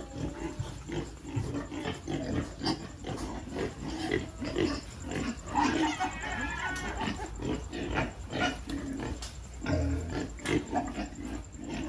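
A pen of young pigs grunting and oinking, mixed with many short clicks and knocks.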